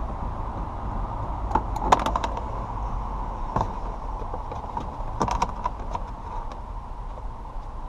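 Hand tools clicking and tapping against the screws and trim of a car door panel as the screws are undone, in small clusters of sharp clicks: one about two seconds in, a single click in the middle, and another run about five to six seconds in, over a steady low hum.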